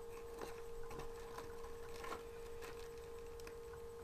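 Small cardboard blind box and plastic packets being handled and opened by hand, with faint crinkling and irregular light clicks, over a steady electrical hum.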